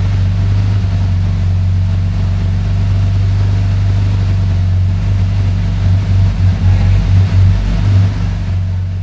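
Porsche 911SC's air-cooled flat-six engine idling steadily, heard from the open engine bay. Its level wavers a few times in the last few seconds.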